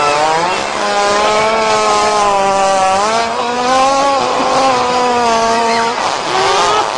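Two-stroke Stihl chainsaw running at high revs while cutting into a tree trunk. Its engine pitch sags and recovers a few times as the cut loads it.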